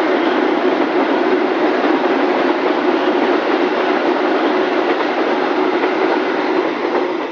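Container flat wagons of a freight train rolling past close by: a loud, steady rolling noise of steel wheels on the rails, beginning to fade at the very end as the last wagons go by.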